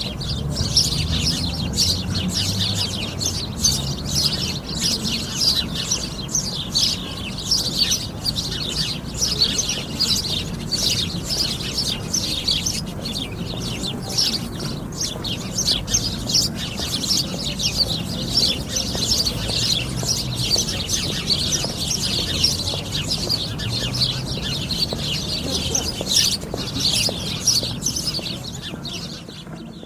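A flock of sparrows chirping continuously, many birds calling at once in rapid overlapping chirps, over a faint low rumble.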